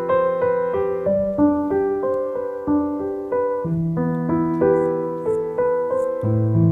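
Background piano music: a slow, gentle melody of single notes over held bass notes.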